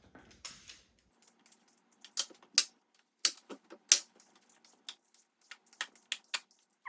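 Irregular sharp clicks and taps of hard objects, a few a second, starting about a second in and thinning out near the end.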